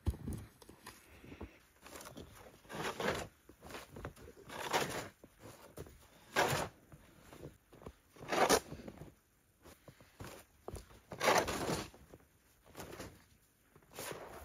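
Short, irregular rustling and scraping noises, about one every one to two seconds, as a person moves about and handles things.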